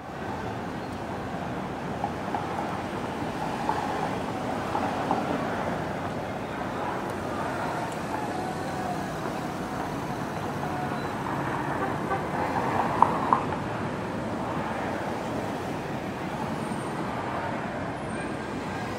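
Steady city street traffic noise, with two brief sharper sounds about two-thirds of the way through.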